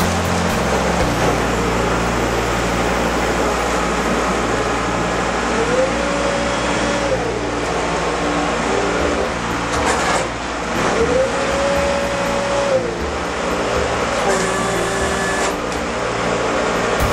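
Steady running noise of a canal tour boat's engine, with a higher tone that rises, holds and falls back twice.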